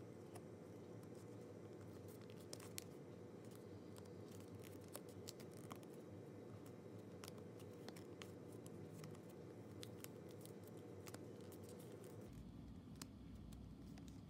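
Faint crinkling and crackling of a square of origami paper being folded and creased by hand, heard as a scatter of small sharp clicks over a steady low background hum. The hum shifts lower near the end.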